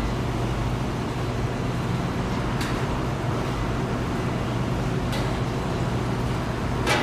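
Metalworking factory machinery running with a steady low hum, and a sharp click about every two and a half seconds, the last one, near the end, the loudest.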